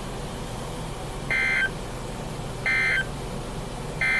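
NOAA Weather Radio broadcast sending the Emergency Alert System end-of-message code right after a severe thunderstorm warning: three short, identical bursts of data tones about a second and a third apart, over steady radio hiss.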